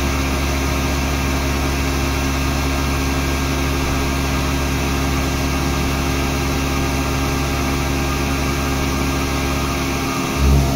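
Indexable shoulder-milling cutter on a CNC machining centre cutting hardened 1.2343 tool steel (43–46 HRC) at 830 rpm, a steady drone of spindle and cutting with the hiss of the air blast used in place of coolant. A brief louder surge near the end.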